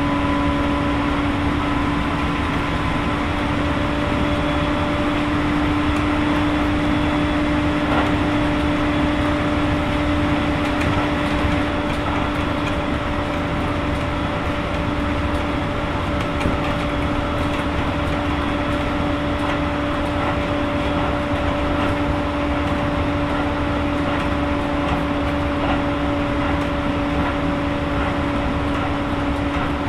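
Keisei 3000 series electric train (Toyo IGBT-VVVF control, TD drive) running at a steady speed, heard from inside the car behind the crew cab: a constant whine from the traction drive over the rumble of wheels on rail.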